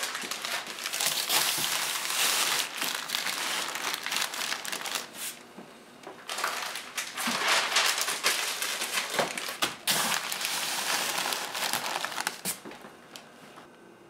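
Packing paper crinkling and rustling as paper-wrapped dishes and glasses are handled and pressed into a cardboard dish barrel box, in irregular bursts with a short lull partway through. It goes quiet for about the last second.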